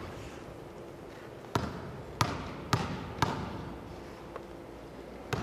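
A basketball dribbled on a hardwood gym floor. Four bounces come about half a second apart starting about a second and a half in, then one more near the end, each echoing in the large hall.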